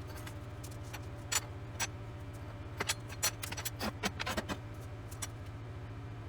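Scattered sharp metallic clinks and knocks over a steady low hum.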